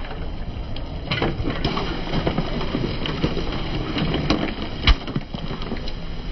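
Car tyre crushing plastic Coca-Cola bottles with balloons on their necks: crackling and crunching of the plastic and the hiss and spatter of fizzing soda spraying out, with one loud bang of a bottle bursting about five seconds in.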